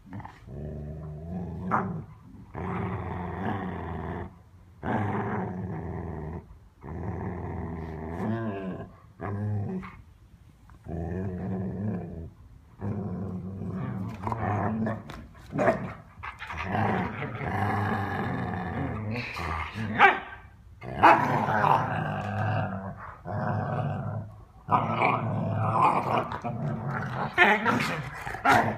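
Two dogs play-growling at each other while wrestling over a toy, in long growl bouts with short pauses. Sharper barks and yips break in during the last third, the loudest about two-thirds of the way through.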